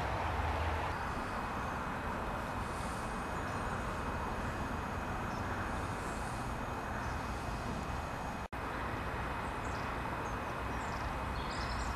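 Steady outdoor ambience: a low rumble and hiss with no distinct event, broken by a brief dropout about two-thirds of the way through.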